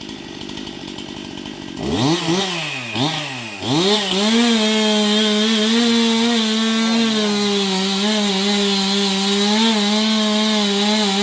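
Chainsaw idling, then revved up twice in quick succession and held at full throttle for about eight seconds, cutting into the tree trunk, with the engine note dipping slightly under load.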